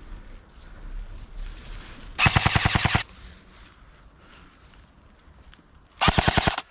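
Airsoft gun firing two short full-auto bursts of rapid, evenly spaced shots, about fifteen a second: the first near the middle, the second shorter near the end.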